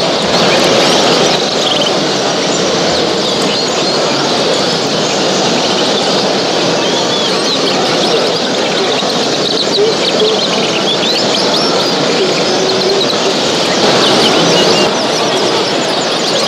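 Many caged show birds chirping and singing at once, a dense continuous chorus over a steady hubbub of people in a crowded hall.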